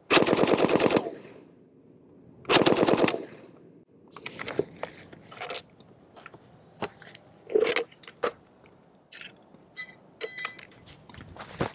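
Two bursts of automatic fire from an original Vietnam-pattern M60 7.62 NATO machine gun: about a second of fire at the start, then a shorter half-second burst about two and a half seconds in. After that come scattered metallic clicks and clacks as the gun is handled and its feed cover is opened near the end.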